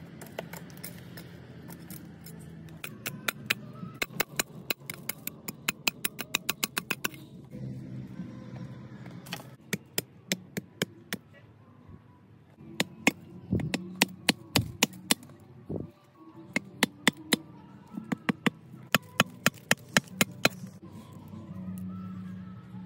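Runs of quick, evenly spaced sharp knocks, a machete striking wooden stakes being set into the ground, in several bursts with short pauses between. Background music plays underneath.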